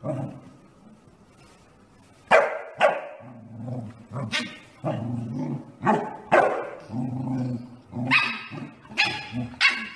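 A dog barking over and over, about ten barks, starting about two seconds in.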